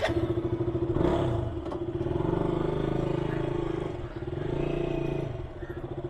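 KTM Duke motorcycle's single-cylinder engine running with rapid firing pulses, swelling a few times under light throttle.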